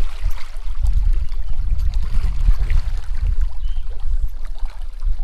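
Wind rumbling and buffeting on the microphone, with small waves lapping and splashing against the rocks at the water's edge.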